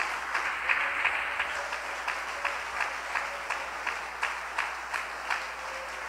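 Church congregation applauding, the clapping falling into a steady unison rhythm of about three claps a second over a wash of scattered applause, dying away near the end.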